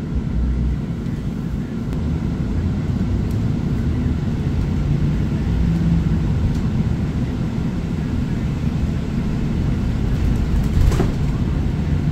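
Steady low rumble of a Chevrolet 4500 ARBOC SOF 27 shuttle bus underway, heard from inside the passenger cabin, with a short knock about eleven seconds in.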